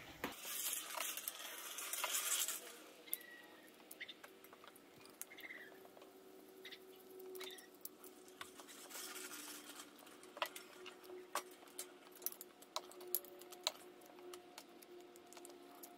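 Gloved hands handling loose steel nuts and washers on a transmission side cover: scattered light metallic clicks and rustling, with a short scrubbing noise near the start.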